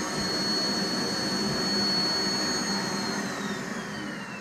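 Vacuum cleaner running with a steady high motor whine. About three seconds in, the whine falls in pitch and the sound fades as the motor winds down.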